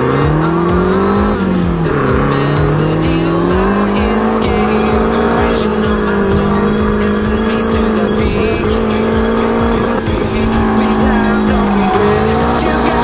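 V8-swapped Mazda RX-7's engine under drift driving. It revs up, drops back briefly near two seconds, then climbs and holds a steady high pitch for most of the time, falling and picking up again near the end, with tyres squealing.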